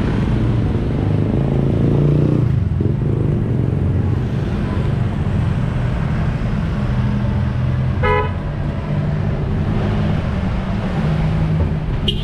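Street traffic: a steady low rumble of motorcycle and car engines, with a short horn toot about eight seconds in and a brief high beep at the very end.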